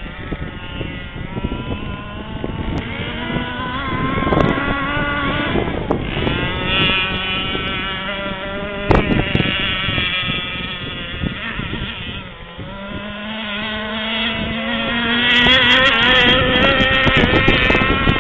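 Radio-controlled model speedboat's motor running at high revs, a buzzing whine whose pitch rises and falls as the boat is throttled and turned. It drops back a little about twelve seconds in, then comes back louder near the end.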